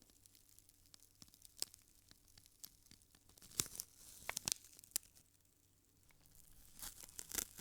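A lit cigarette's ember burning through paper, giving a faint, irregular crackle of small ticks. The crackle grows denser and louder for a couple of seconds in the middle, and again near the end.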